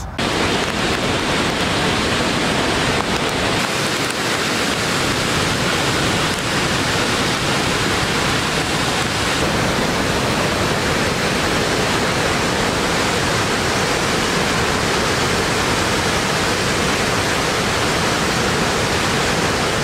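Large waterfall thundering into a gorge: a loud, steady rush of falling water.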